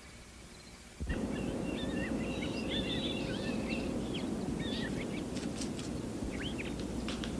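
Birds chirping and twittering over a steady outdoor background hiss, which starts abruptly about a second in.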